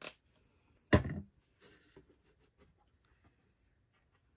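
A single loud knock about a second in, followed by a few faint taps and handling noises.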